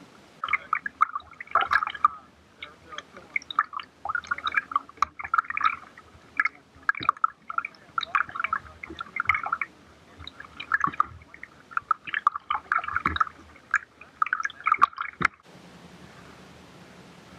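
Water splashing and gurgling in irregular bursts about once a second, as a kayak is paddled. It cuts off suddenly near the end.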